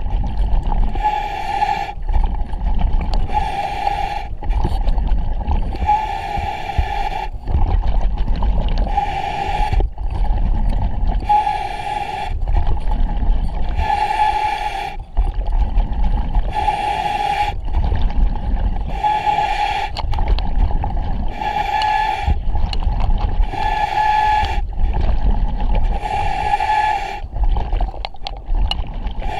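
A diver breathing through an underwater breathing regulator: a hissing inhale about every two and a half seconds, with a low bubbling rumble of exhaled air between the breaths.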